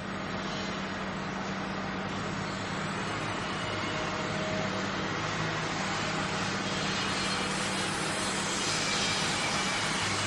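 Steady engine-like rumble with a rushing noise and a low hum, slowly growing louder.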